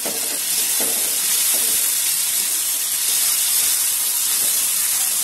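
Onions, garlic and ginger paste sizzling hard in hot oil in a metal wok just after a splash of turmeric water, while a metal spatula stirs and scrapes through them. The sizzle is loud and steady.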